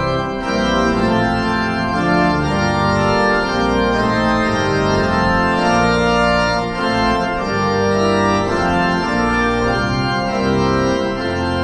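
Organ playing a hymn tune in full sustained chords, the harmony changing every second or so over a moving bass line.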